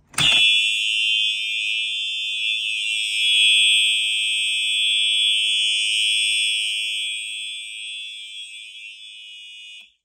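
A fire alarm pull station snaps as it is pulled, and a Simplex horn strobe starts a loud, steady, buzzy horn tone without pauses. About ten seconds in, the horn cuts off abruptly as the alarm is silenced at the control panel.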